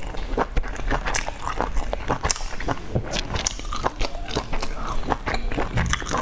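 Close-miked chewing and mouth sounds of a person eating soft steamed dumplings dipped in chili sauce, with many sharp clicks in an uneven rhythm.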